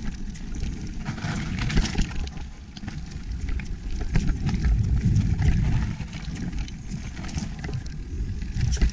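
Electric mountain bike riding a rough trail, heard from a chest-mounted camera: a steady low rumble of wind and tyres, broken by many small clicks, knocks and rattles from the bike over the ground.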